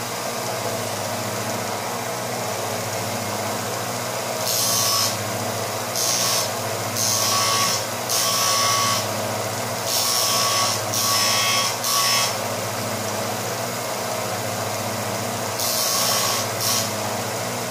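Small bench belt-and-disc sander running steadily, with about eight short bursts of grinding hiss from a few seconds in, as a steel twist drill bit is pressed to the abrasive to sharpen its point.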